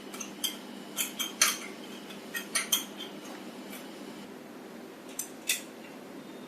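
Light metallic clicks and taps of small parts being handled and fitted as a replacement servo motor is mounted back onto a voltage stabilizer's gear assembly. They come in a quick irregular run over the first three seconds, then two more about five seconds in.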